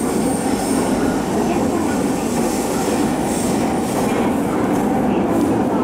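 Sobu Line commuter train heard from inside the car as it pulls out of an underground station into the tunnel: a steady rumble of wheels on rail and running gear.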